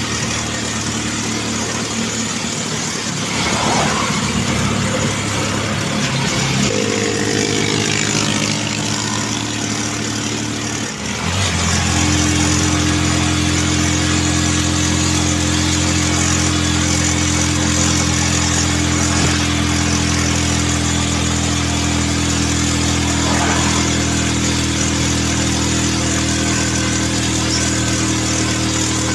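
Motorcycle engine running under way, with wind hiss on the microphone. The engine note changes over the first several seconds, dips briefly about eleven seconds in, then holds a steady cruising note.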